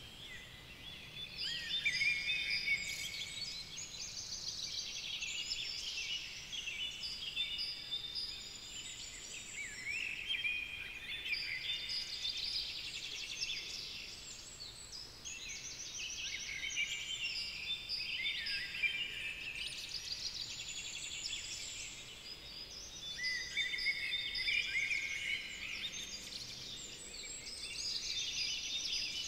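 Birdsong chorus: several songbirds singing at once, a dense run of high chirps, whistled glides and trills that thins briefly now and then.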